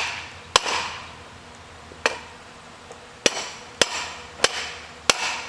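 Hand hammer striking a glowing steel-and-nickel billet at welding heat, forging it by hand: six sharp blows at an uneven pace, each with a short ring.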